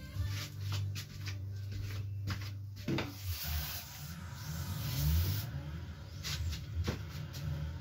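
Scattered clicks, knocks and scraping of hand work under a car, with a sharp knock about three seconds in and another near seven seconds.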